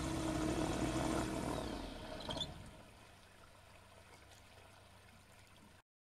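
Aeroprakt A-22 floatplane's engine and propeller running steadily as it taxis on the water, fading away over the first two and a half seconds, with a brief sharp high sound just after two seconds in. Faint background noise follows until the sound cuts off abruptly near the end.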